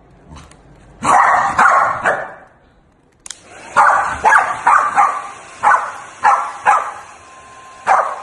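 A corgi barking in short, separate barks, a burst of them about a second in and then about ten more, over the steady rushing hiss of a hair dryer that switches on about three seconds in.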